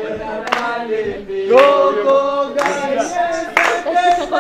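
A group of voices singing together in held, gliding notes, with hand claps about once a second.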